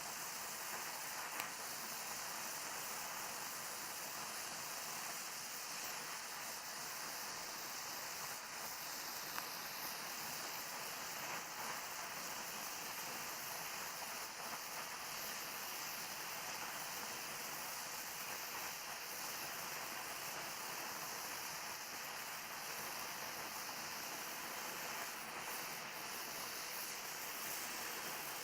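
Oxyacetylene torch flame hissing steadily while a bead is gas-brazed with filler rod, with an occasional faint click.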